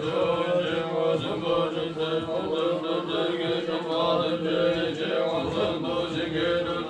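Group of Buddhist monks chanting prayers together from their texts, many voices in a steady low drone.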